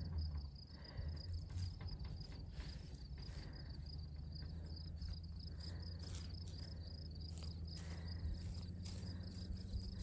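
Field insects trilling steadily, a thin, high, continuous pulsing buzz, over a low steady hum and a few soft bumps.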